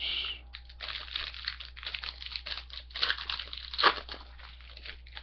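A foil trading-card pack wrapper being torn open and crumpled by hand, an uneven crinkling with a sharp crackle a little before the end.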